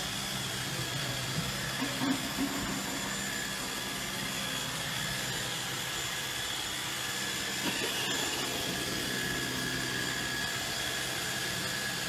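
iRobot Roomba robot vacuum running on a hardwood floor: a steady mechanical hum of its motors and brushes, with a few faint clicks.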